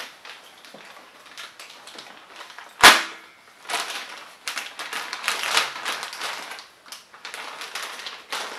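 Plastic bags and packing wrap crinkling and rustling as they are lifted out of a cardboard box, with one sharp snap a little under three seconds in, the loudest sound.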